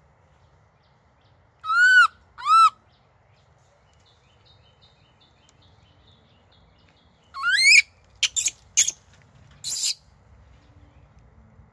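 Baby macaque calling: two short arched coos about two seconds in, then a rising coo near the middle followed by a quick run of shorter, harsher cries.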